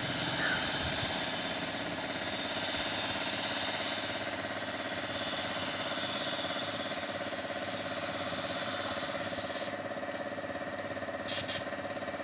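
Gravity-feed paint spray gun hissing as it sprays white paint onto a bus body panel, over a steady motor hum. The hiss stops about ten seconds in, followed by a few short spurts of spray near the end.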